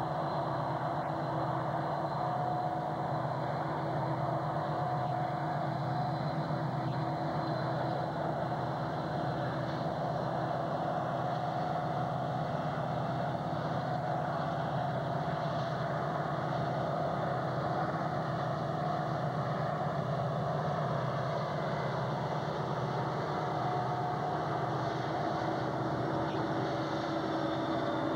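Steady engine drone with a low, even throb, growing a little louder near the end as the coal train's diesel locomotives draw close.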